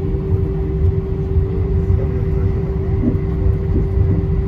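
Steady low rumble of an Airbus A320's cabin after landing, with a constant hum running through it.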